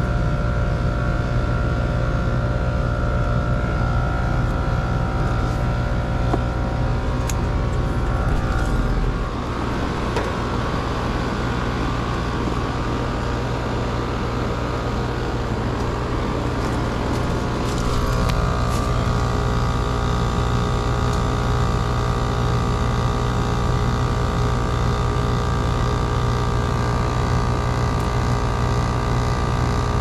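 Older Carrier heat pump package unit running, with compressor and condenser fan humming steadily. It is running on a jumper from the yellow wire to the contactor, bypassing a defrost control board that would not pull the contactor in. The hum changes in tone about nine seconds in and again about eighteen seconds in.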